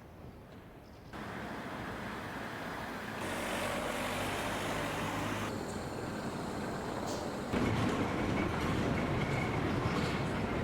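Outdoor traffic sound with vehicles running, in several steady stretches that change abruptly every two seconds or so. One stretch carries a steady low engine hum, and the last is the loudest.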